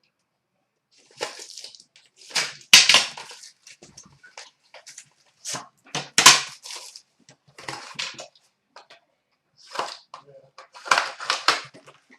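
Trading-card packaging being torn open and crinkled, in irregular bursts of rustling and crackling as the next pack of hockey cards is opened.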